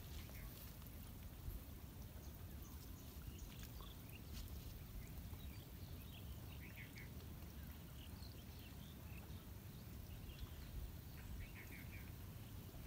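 Quiet ambience: a steady low rumble, with faint short bird calls now and then, a small cluster about seven seconds in and another near the end.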